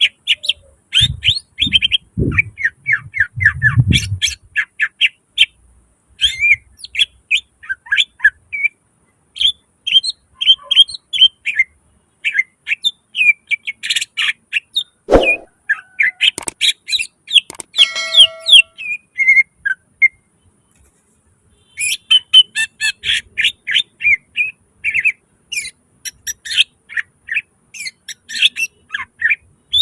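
Cucak ijo (green leafbird) singing fast, varied runs of short chirping and whistled notes, with a pause of about two seconds past the middle. A few low thumps sound in the first seconds and a single sharp click about halfway through.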